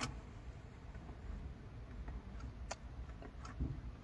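Quiet room tone with a few faint, scattered clicks.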